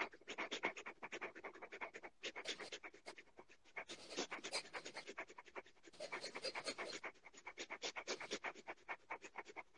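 Rapid, rhythmic breathing through both nostrils, several quick breaths a second: the fast 'wolf breath' breathing exercise.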